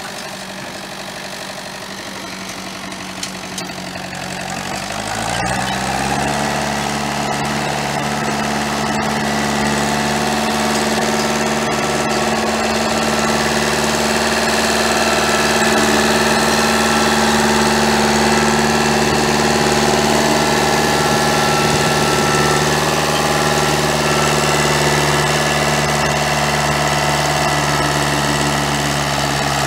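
Farm tractor's diesel engine running steadily; about five seconds in it revs up, its pitch rising and the sound growing louder, then holds at working revs as it pulls a tined seeding implement.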